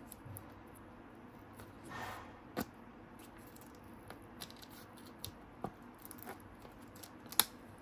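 Fingernails picking at and peeling the stiff protective film off a Topps Finest chrome trading card: faint crackles and scattered small clicks, with a sharper click near the end.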